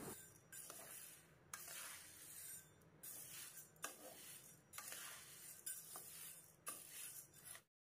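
Metal spatula stirring and turning whole green moong beans as they dry-roast in a nonstick pan: faint rattling swishes of the dry beans, about one stroke a second, stopping abruptly just before the end.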